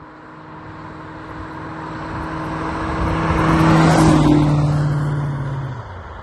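1985 Aston Martin V8 driving past: its steady V8 engine note and tyre noise build as it approaches, are loudest as it passes about four seconds in, then fade. The sound cuts off abruptly near the end.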